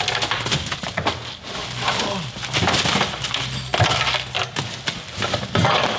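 Bagged and boxed merchandise sliding out of a large cardboard box and tumbling into a pile in a store bin: an irregular clatter and rustle of packaged goods landing.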